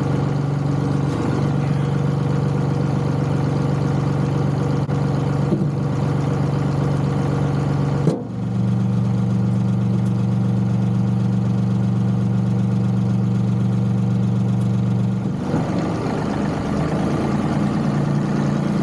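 John Deere 2038R compact tractor's three-cylinder diesel engine running steadily. Its note changes after a brief dip about eight seconds in and changes again near fifteen seconds.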